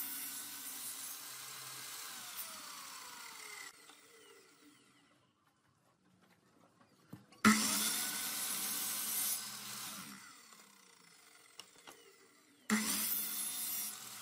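Electric sliding compound miter saw cutting through thin wood strips three times, each cut starting suddenly. After each cut the motor winds down with a falling pitch, and there are short quiet gaps between cuts.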